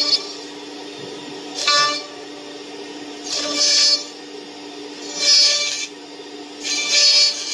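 CNC router's horizontal double-direction drilling spindle running steadily, its bit boring into a laminated plywood block in repeated pecks. Each plunge is a loud, high-pitched drilling burst of about half a second, and they come roughly every one and a half seconds over the spindle's constant hum.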